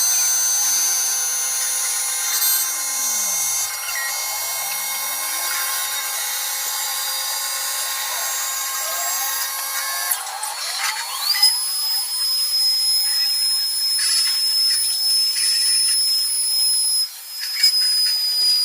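Automatic wood-carving machine running, a steady high-pitched mechanical whine with cutting noise. About ten seconds in, the sound changes and a single high whine settles and holds.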